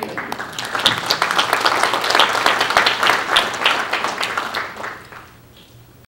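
Audience applauding, many hands clapping together, dying away over the last second or so.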